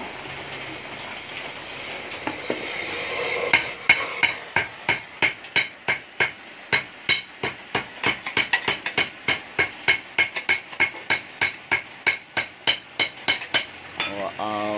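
Oxy-acetylene torch hissing as it cuts inside a steel motorcycle muffler. About three and a half seconds in, a hammer starts striking the muffler's steel casing at a steady three to four ringing blows a second, knocking loose the cut-out inner baffles.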